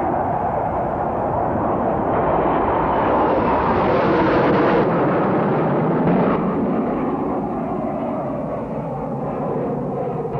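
Hawker Siddeley Nimrod's four Rolls-Royce Spey turbofan engines running at high power as the aircraft climbs away after takeoff: loud, steady jet noise that swells toward the middle and eases slightly near the end.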